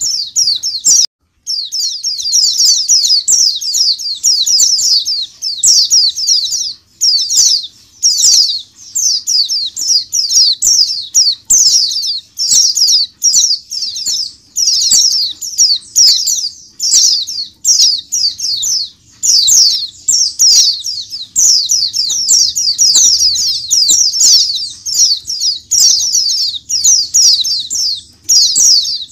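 A large crowd of caged white-eyes (pleci) chirping together in a dense, continuous high-pitched twittering, with a brief break about a second in.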